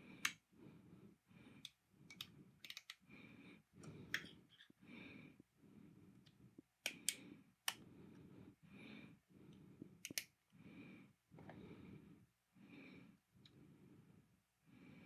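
Light switches on a wooden busy board being flipped, giving sharp single and double clicks at irregular intervals, loudest near the middle. Under them a faint soft sound repeats about once a second.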